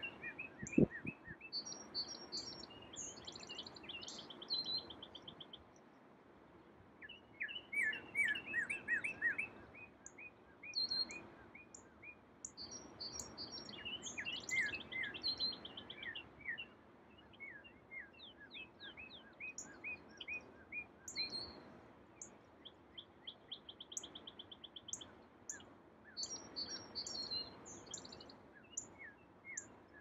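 Several songbirds singing together in a dawn chorus: repeated short down-slurred chirps mixed with fast high trills, over a faint steady background noise. A single low thump sounds about a second in.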